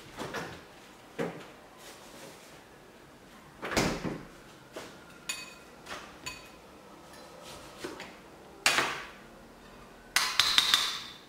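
Knocks and clunks of kitchen work: a refrigerator door opening and shutting, then a knife cutting a lemon on a cutting board. A quick run of sharp clicks comes near the end.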